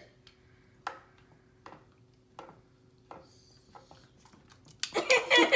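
A few light clicks of a spoon against a saucepan as the milk and rice are stirred, over a faint steady hum. Near the end a child bursts out laughing, louder than anything before it.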